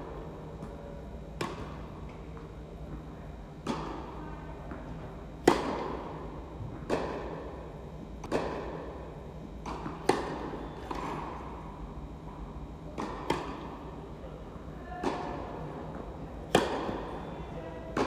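Tennis rally: a ball struck by rackets and bouncing on the court, a regular run of sharp pops about every one and a half to two seconds. Each pop echoes in the hall, and the near player's strokes are the loudest.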